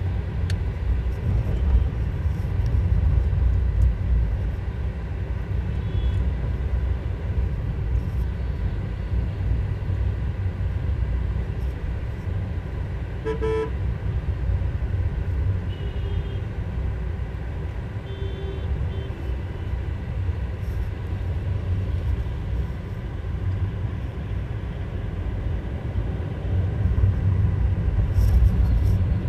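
Steady low rumble of road and engine noise inside a moving car, with short vehicle horn toots: one clear toot about halfway through and two fainter ones a few seconds later.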